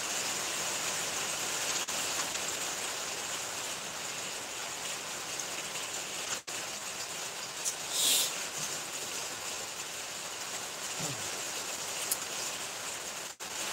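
Steady rain falling, heard as an even hiss, with a brief louder hiss about eight seconds in.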